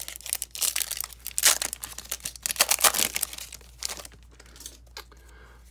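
Foil wrapper of a hockey card pack being torn open and crinkled by hand: a rapid run of crackles for about four seconds, then fainter, with a few soft clicks near the end.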